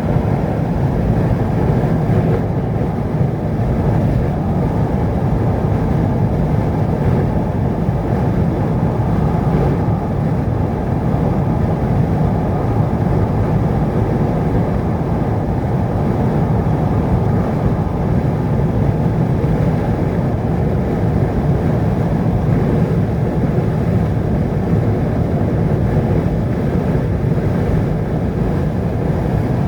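Steady low rumble of a vehicle driving on a road, engine and tyre noise without change.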